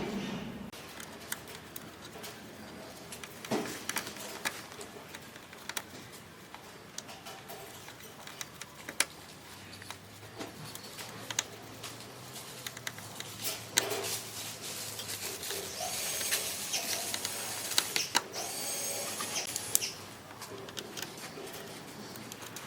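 Scattered light clicks and knocks of parts being handled during assembly, with birds chirping in the background, the chirping busiest about three quarters of the way through.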